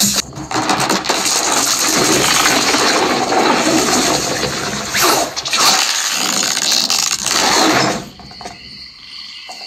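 Samsung HW-B55E 2.1-channel soundbar and subwoofer playing back audio streamed from an iPhone over Bluetooth: a loud, dense mix without a clear tune, which drops much quieter about eight seconds in.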